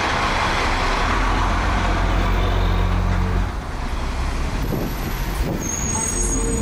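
A converted school bus passing close by, its engine a steady low drone with road noise, which drops away about three and a half seconds in as the bus moves off.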